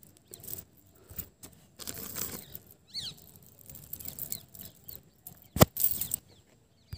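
Faint scattered rustling and clicking handling noise, with a short high falling chirp about three seconds in and one sharp knock about five and a half seconds in.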